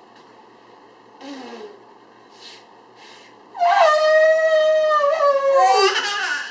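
A young child's voice imitating an elephant's trumpet: after a few faint little sounds, a loud, high, held squeal starts about three and a half seconds in, stays at one pitch for about two seconds, then slides down near the end.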